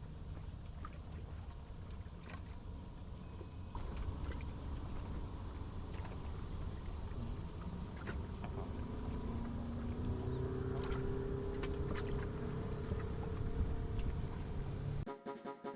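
Wind and water on an open-sea fishing raft, with scattered small knocks. A boat engine drones faintly through the second half, its pitch rising a little.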